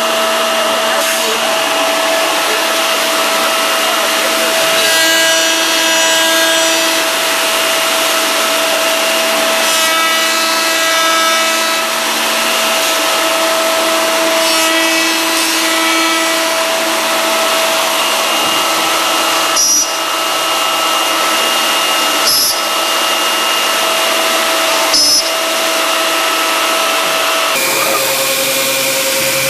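Accu-Systems MTH CNC horizontal machining center running, its high-speed spindle motors giving a steady, high-pitched whine. There are two louder stretches about five and ten seconds in, sharp clicks about twenty, twenty-two and twenty-five seconds in, and the whine shifts pitch near the end.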